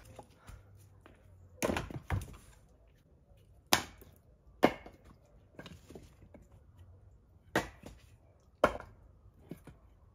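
Split firewood logs knocking and clattering as they are thrown onto a woodpile: about six sharp wooden knocks at irregular intervals, with a few fainter clunks between them.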